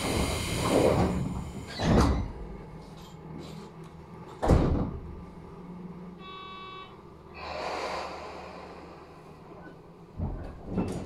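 Electric train's sliding doors inside the carriage: a hiss of air at the start, then heavy thuds about two seconds and four and a half seconds in, the second the loudest, and twice more near the end. A short high tone sounds about six seconds in.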